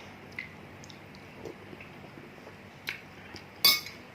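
Eating sounds from a bowl of bakso: a few light clicks and clinks of a spoon against the bowl, with one louder, short sharp sound about three and a half seconds in.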